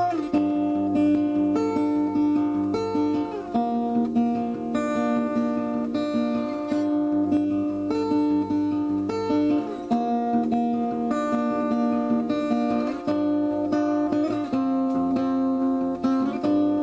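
Background music: acoustic guitar strumming chords that change every second or two.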